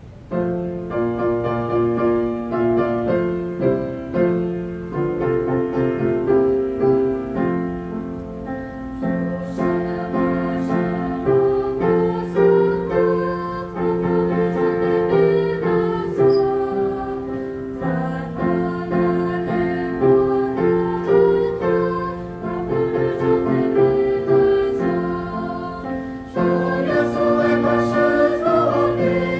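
Choir singing a slow hymn in long held chords, starting suddenly at the beginning, with a fuller, louder passage from about 27 seconds in.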